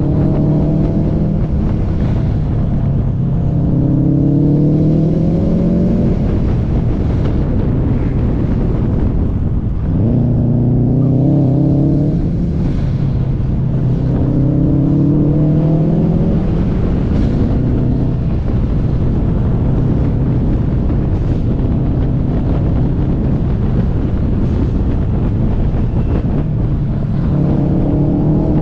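Car engine pulling hard and easing off through a string of corners: the pitch climbs several times, drops sharply about ten seconds in, and holds steadier through the middle, over constant road and wind noise.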